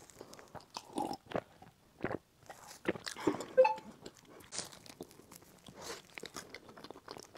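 Close-miked eating sounds: a sip and swallow from a glass of drink, then crunchy chewing. Near the end comes a crisp bite into a pistachio-filled burst bun with a crunchy shredded-pastry coating.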